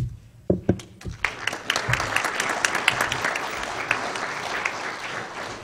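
Audience applauding. It starts with a few separate claps, fills out within about a second into steady applause, and thins near the end.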